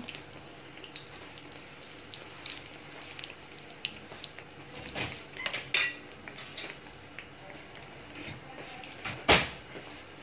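Beignets deep-frying in a pan of hot oil with scattered small crackles. A utensil clinks against the frying pan several times about halfway through as a beignet is turned, and strikes it once sharply near the end, the loudest sound.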